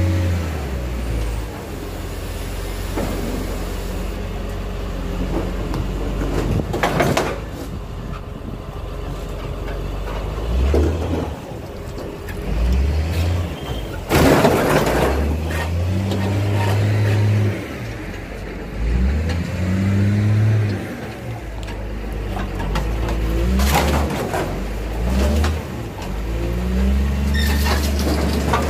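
Wheel loader's diesel engine revving up and easing off over and over as its forks work a van body, with several bangs and crunches of sheet metal, the loudest about halfway through.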